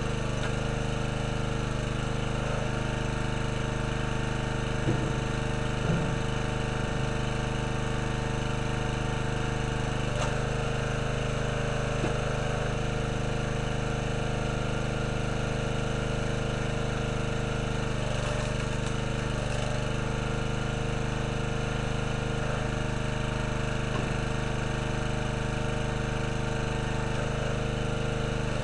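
Small gasoline engine of a towable hydraulic log splitter running steadily, with a few short knocks as logs are handled and split.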